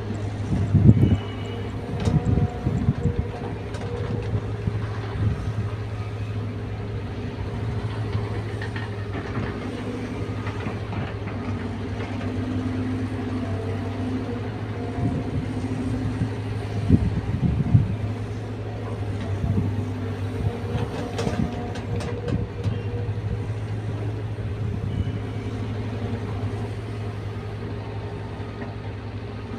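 Caterpillar 320 excavator's diesel engine running steadily, with scattered heavy knocks and clunks, the loudest about a second in and again around seventeen seconds.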